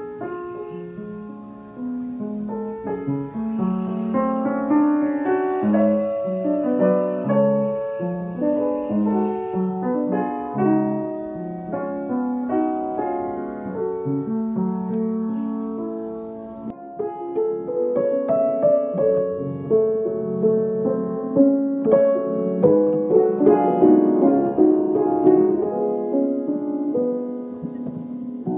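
Solo piano playing a slow, gentle piece of melody notes over held chords. About halfway through it dips briefly, then goes into a fuller, denser passage.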